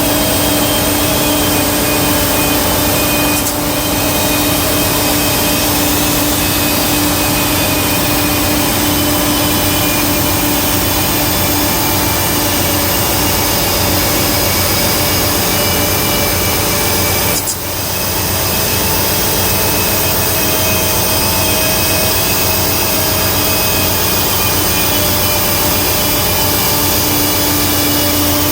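Portable in-situ crankpin grinding machine running steadily as it grinds a crankshaft's crankpin journal in place, a constant motor whine with grinding noise, dipping briefly twice.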